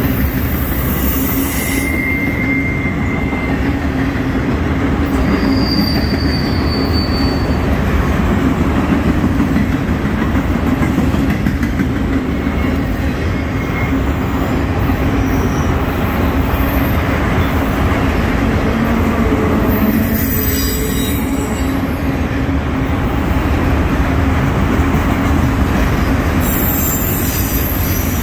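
Autorack freight cars of a long manifest train rolling past, their steel wheels on the rails making a loud, steady rumble. A few brief high-pitched wheel squeals come through in the first several seconds.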